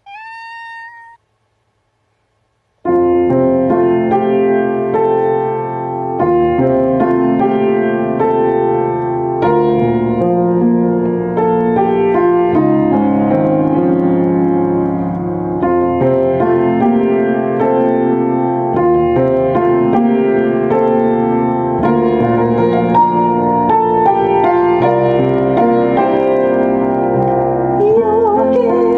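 Solo piano playing a slow ballad introduction of chords and melody, starting about three seconds in after a short high tone and a brief silence; a voice begins singing near the end.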